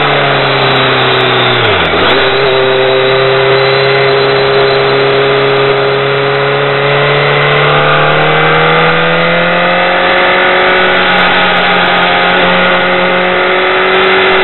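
BMW K1200R motorcycle's inline-four engine under way, heard over wind rush. Its pitch falls as the bike eases off, dips sharply about two seconds in, then holds and climbs gently as it accelerates again before settling steady.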